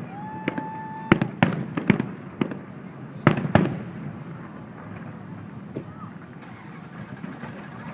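Fireworks going off: a rapid run of sharp bangs and pops, with a steady whistle in the first second. The bangs thin out in the second half.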